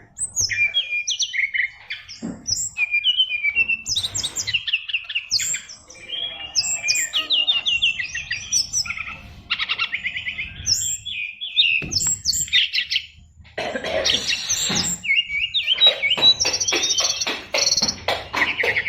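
A sikatan rimba dada coklat (SRDC, brown-chested jungle flycatcher) singing a long, varied song of rapid chirps, trills and fast repeated notes. The song is packed with mimicked phrases ("isian luber").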